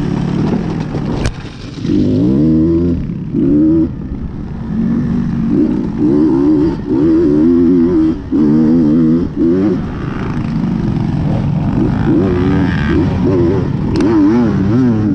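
KTM XC-W dirt bike engine revving hard in repeated bursts, its pitch climbing and falling with brief dips as the throttle is rolled off and back on. Two sharp knocks, one about a second in and one near the end.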